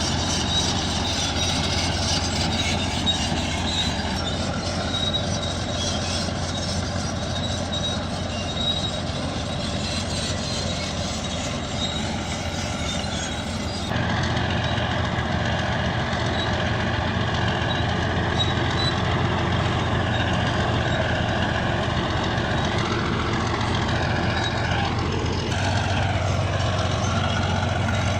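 Bulldozer's diesel engine running steadily with the clatter of its steel tracks while it works. The sound changes abruptly about halfway through and again near the end, as one clip cuts to another.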